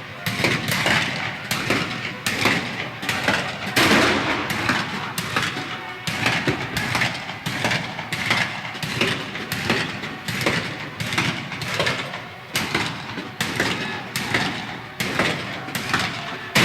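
19th-century battle ambience: irregular gunshots, several a second at times, with heavier artillery-like booms over a continuous din. The firing is loudest about four seconds in.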